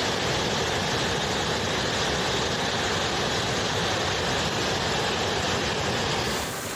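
Helicopter flying overhead, its rotor and engine making a loud, steady noise.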